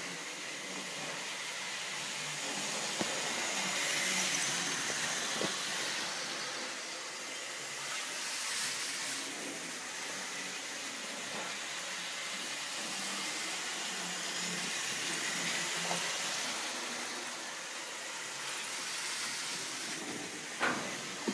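Model steam locomotive running on a model railway layout: a steady hiss, with a few light clicks and a sharper click near the end.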